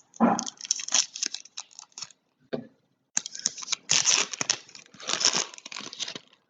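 Foil trading-card pack wrappers being torn open and crinkled by hand, in two bouts of crackling: one in the first two seconds and a longer one from about three to six seconds in.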